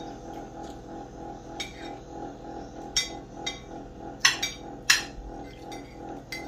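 Metal spoons clinking and scraping against ceramic plates: about six sharp clinks, the loudest two a little past the middle. Soft background music with a steady drone runs underneath.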